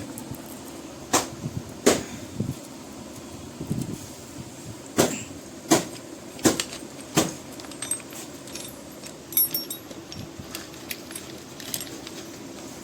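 A hand tool taps and knocks on metal parts of an air conditioner: sharp metallic knocks and clinks at irregular intervals, a few of them louder.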